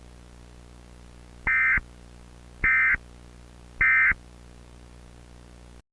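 Three short screeching data bursts of an Emergency Alert System end-of-message (the SAME "NNNN" tones), each about a third of a second long and about a second apart, over a steady low hum. The audio cuts off abruptly near the end.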